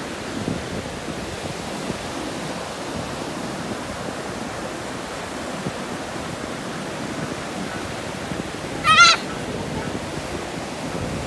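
Surf on a sandy beach: waves breaking and washing up the shore as a steady rush. About nine seconds in, a brief high-pitched cry cuts through.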